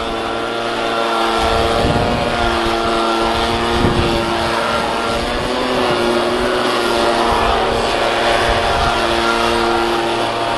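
Small handheld two-stroke blower engine running steadily at high revs, blowing air into the gaps of a rock pile. Its pitch wavers slightly but it never stops.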